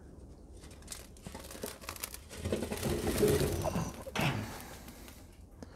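Lit charcoal poured from a chimney starter into the charcoal basket of an ugly drum smoker. The coals tumble out in a crackling, clattering rush from about two and a half seconds in, with a last burst just after four seconds.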